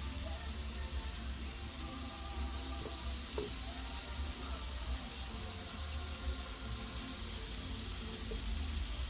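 Hot dog buns spread with mayonnaise sizzling steadily in a frying pan as they toast.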